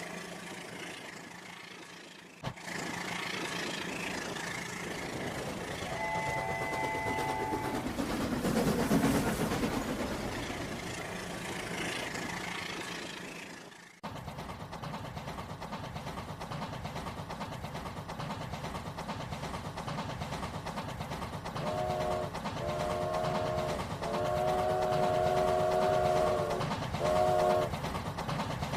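Train running, with its horn sounding once for about a second and a half. After an abrupt cut, a steady rhythmic clatter of wheels on rail joints, and near the end four horn blasts, the third much longer than the others.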